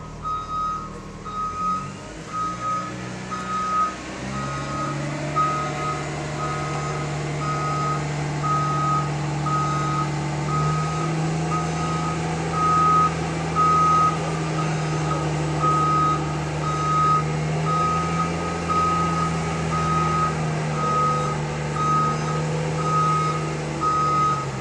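Large boat-yard forklift working with a boat on its forks: a steady back-up alarm beeps a little faster than once a second over the engine's low hum. The engine picks up about four seconds in and rises in pitch around halfway.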